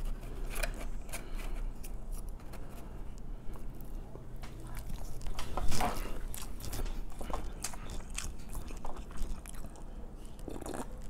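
Close-up chewing and biting of sushi rolls, with many small wet mouth clicks, the sharpest about six seconds in. Near the end there is a sip from a bowl.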